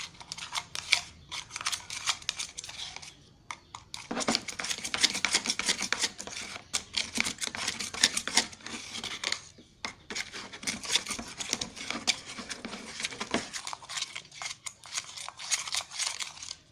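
A utensil stirring glue and liquid soap together in a bowl while mixing slime: rapid scraping and clicking, with two short pauses, about three seconds in and again near ten seconds.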